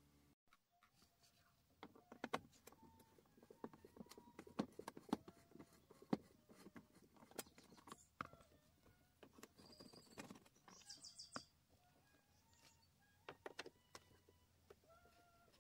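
Faint, irregular clicks, taps and knocks of a hand tool and wiring being handled against plastic dashboard trim in a car footwell.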